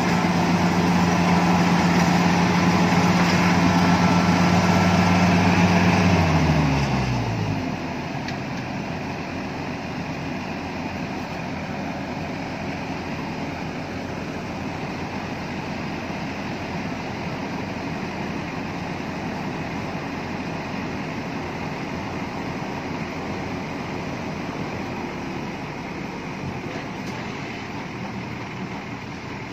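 Iseki HC80 rice combine harvester's engine running steadily at working speed, then throttled down about six seconds in: the pitch falls over a second or so and the level drops. The machine keeps running more quietly afterwards.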